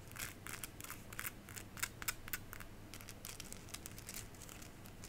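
Quick, faint clicks and taps from handling a small beaded decorative letter K. They come thick and fast for about two seconds, then more sparsely.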